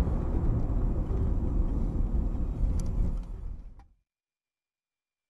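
Road noise inside a moving car: a steady low rumble of tyres and wind. It fades out a little under four seconds in and gives way to dead silence.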